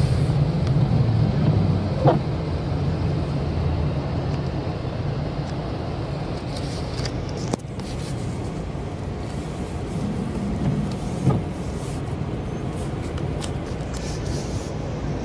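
Road traffic noise: vehicle engines running steadily, with a short knock about two seconds in and another about eleven seconds in.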